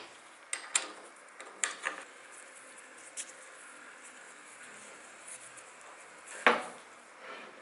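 Light metallic clicks and clinks of an Allen key working the threaded top cap of a scooter fork leg as it is screwed back in, with a few scattered ticks early and a louder knock about six and a half seconds in.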